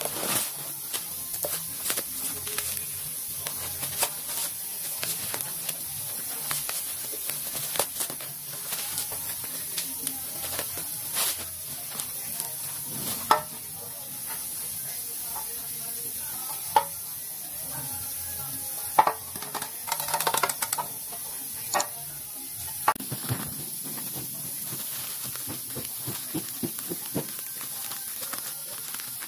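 Plastic bubble wrap and packaging crinkling and crackling as it is handled and unwrapped, with a few sharper clicks and knocks in the middle.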